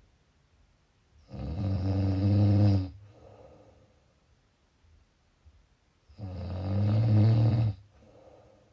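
Snoring: two long, low-pitched snores about five seconds apart, each lasting about a second and a half and followed by a softer, shorter breath.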